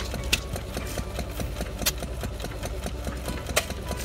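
Vintage hit-and-miss gas engines running: a fast, steady mechanical clatter with three sharp cracks about a second and a half apart.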